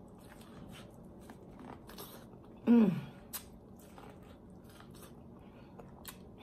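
Biting into and chewing kernels of corn on the cob: many short, crisp clicks of teeth and mouth. About three seconds in, a brief hum from the eater, falling in pitch, is the loudest sound.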